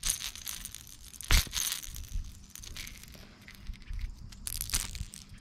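Close handling noise of a hooked fish being unhooked by hand: scattered clicks and rustles of the popper lure and hooks, with one sharp knock a little over a second in.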